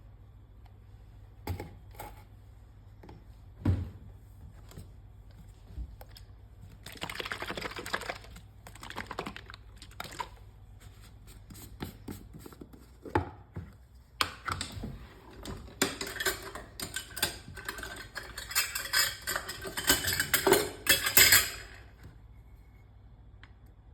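Kitchen handling noises while ingredients are prepared: scattered knocks and taps, then stretches of dense clattering and rustling that stop shortly before the end. A faint steady low hum runs underneath.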